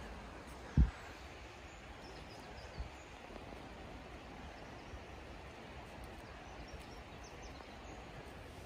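Outdoor ambience: a steady low hush with a few faint high chirps. A single sharp low thud about a second in is the loudest sound, with a softer thud near three seconds.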